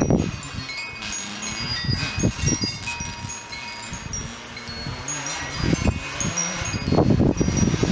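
Metal tube wind chimes ringing irregularly, many short high notes scattered throughout. Intermittent bursts of low rumbling noise come and go, loudest near the end.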